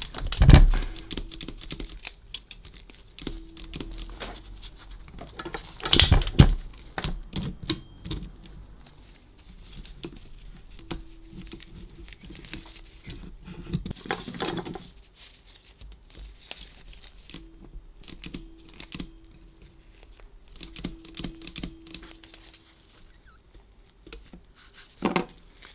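Small metal parts of a Facit C1-13 mechanical calculator clicking and rattling as its mechanism is worked by hand, irregularly, with a few louder knocks spread through and a faint hum coming and going.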